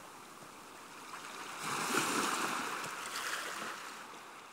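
Rush of waves washing, swelling about a second and a half in and then fading away.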